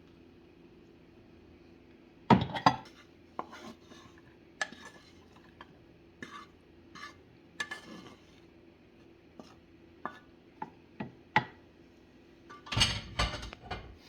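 Spoons and cutlery clinking and scraping against pots and plates while food is dished up: scattered knocks, with louder clusters about two seconds in and near the end. A steady low hum runs underneath.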